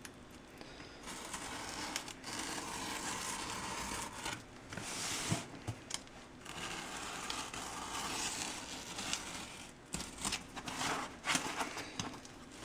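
Packing tape being picked at and peeled off a cardboard box by hand, a long rasping, crinkling tear with fingers rubbing on the cardboard. In the last few seconds it breaks into a run of short crackles and taps as fingernails work at the tape edge.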